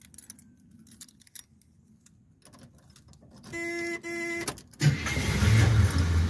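Keys jingling and clicking at the ignition of a 1970 Buick Skylark, then a short steady tone in two pulses, and about five seconds in the engine starts right up and keeps running.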